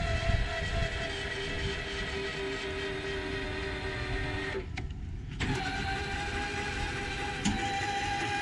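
Hydraulic pump of a yacht's power transom door running with a steady whine while the door lowers. It cuts out for under a second about four and a half seconds in, then starts again at a higher pitch.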